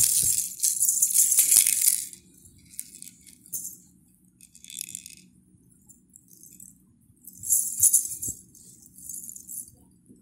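A plastic baby rattle shaken in bursts: a long, loud shake over the first two seconds, then short, quieter shakes, and another loud shake later on.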